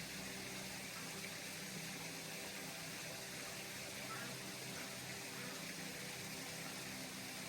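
Running water: a steady, even rush with no breaks.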